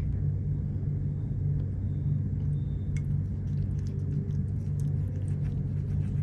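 A steady low hum runs throughout, with faint light ticks and scrapes as a lime is squeezed over a ceramic bowl and a wooden stick stirs thick besan paste in it.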